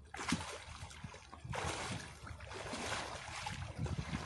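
Floodwater splashing and sloshing as a rescuer wades chest-deep toward a dog, with irregular low knocks and a steady hiss from about a second and a half in.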